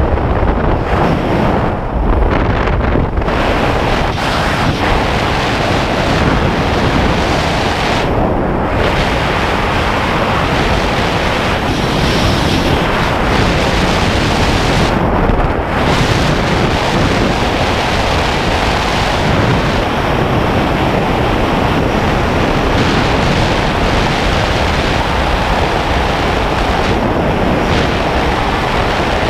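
Steady, loud wind rushing over a helmet-mounted camera's microphone during descent under an open parachute, with the hiss thinning briefly a few times.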